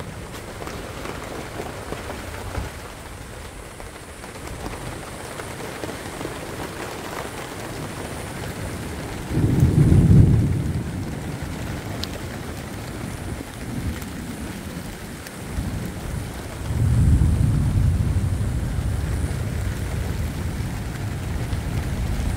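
Steady rain falling, with two low rumbles of thunder, about nine seconds in and again about seventeen seconds in; the second rolls on for a couple of seconds.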